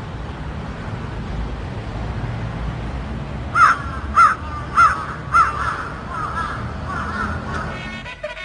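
Crows cawing: a run of harsh caws about one every half second beginning about halfway through, the first four loudest and the rest weaker and overlapping, over a low steady rumble.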